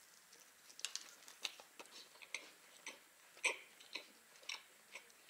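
A person chewing a mouthful of baked fish pie, with irregular soft mouth clicks and smacks about once or twice a second, the loudest about three and a half seconds in.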